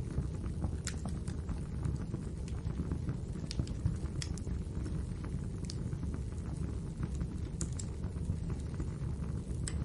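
Wood fire of burning logs crackling, with scattered sharp pops and snaps over a steady low rumble of the flames.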